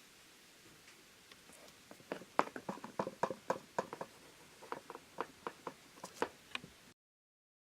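An irregular run of light clicks and taps, like small hard objects being handled, starting about two seconds in and stopping suddenly near the end.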